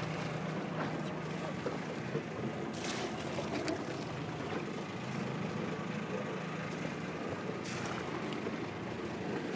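A boat's engine running with a steady low hum, and water rushing past the hull. Two brief noisy rushes come about three and eight seconds in.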